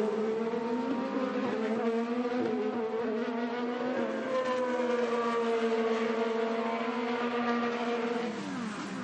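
IndyCar's 2.2-litre twin-turbo V6 racing engine running at high revs at speed. The pitch dips briefly about two seconds in, then holds and creeps slightly higher, and drops away near the end as the car slows and downshifts.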